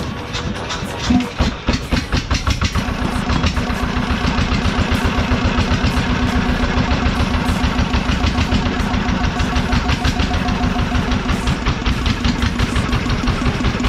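Small single-cylinder diesel engine running steadily, its firing strokes making an even, rapid beat; it is being test-run before teardown. A steady low hum joins in about two and a half seconds in.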